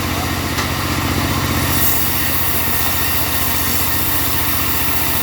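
Engine of a mobile bandsaw sawmill running steadily, with a fast, even low pulse.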